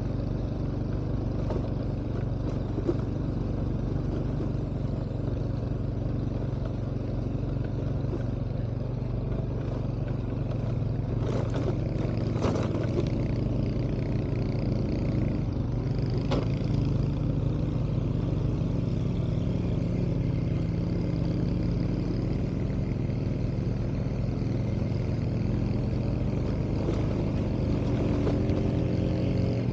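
A motor vehicle's engine running steadily while travelling along a rough hill road, with a few clattering knocks about twelve seconds in and the engine note shifting near the end.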